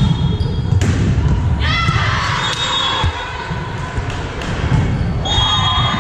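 Echoing gymnasium din during a volleyball match: players' high shouts and calls rising about two seconds in and again near the end, over thuds of the ball and a steady hall rumble.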